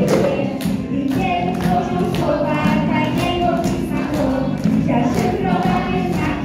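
Group of children singing a song together over music, with a steady percussive beat.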